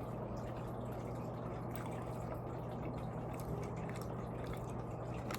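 Steady low electrical-sounding hum with even background room noise, broken by a few faint clicks.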